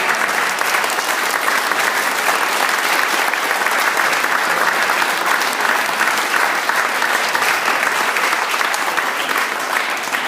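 A crowd applauding steadily, many hands clapping.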